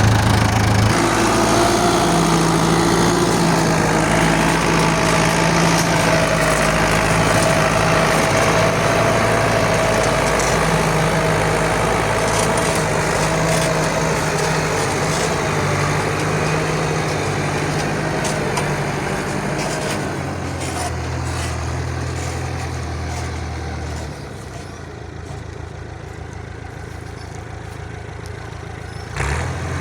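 Truck engine running steadily. About twenty seconds in its note drops and it grows quieter, and there is a brief knock near the end.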